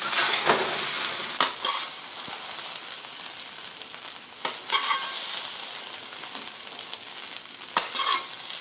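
Fried rice sizzling in a hot wok while it is stirred and turned with a ladle and spatula: a steady sizzle with scraping strokes and a few ringing clinks of the utensils.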